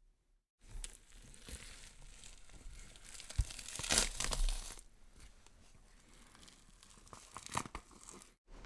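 Horror sound effect of something tearing and crackling. It swells to its loudest three to four seconds in, then dies away, with a few sharp cracks near the end.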